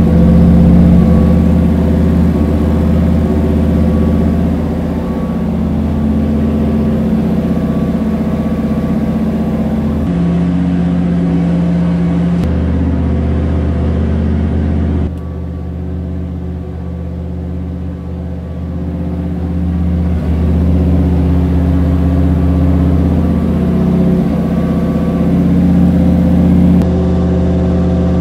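Chevrolet 327 small-block V8, freshly rebuilt, running at a steady speed on an engine dyno and exhausting through cast-iron exhaust manifolds. The sound steps in level and tone several times and is quieter and duller for a few seconds around the middle.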